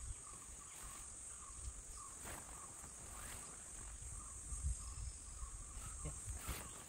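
A steady high-pitched chorus of insects, with a few brief chirps over it and some low rumbles.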